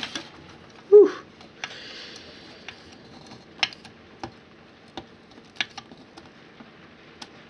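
Screwdriver tightening the central screw on the metal dome of a 12-volt alarm bell: scattered small clicks and a light scrape of metal on metal, with one short louder note about a second in.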